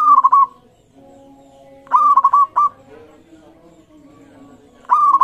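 Zebra dove (perkutut) cooing: three short, loud phrases of quick clipped notes, about two seconds apart, the last near the end.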